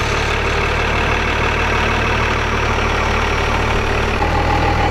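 Dodge Ram pickup's diesel engine idling steadily just after being started. Its note shifts about four seconds in.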